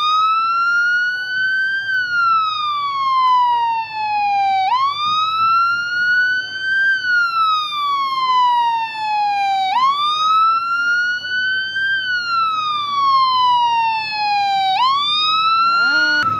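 Emergency vehicle siren sounding a slow wail. Each cycle jumps up in pitch, climbs a little further, then falls slowly, repeating about every five seconds.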